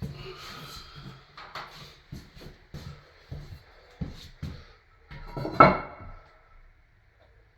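Light knocks and clacks of hard parts being handled, with one louder clack about five and a half seconds in.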